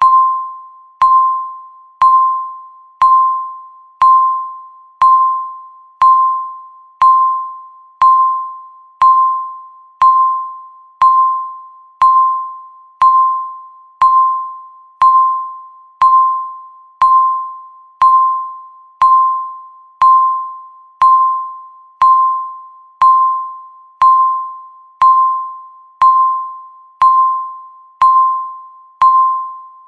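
Countdown timer beep sounding once a second, each stroke a single chime-like tone that starts sharply and fades away before the next, marking each second left.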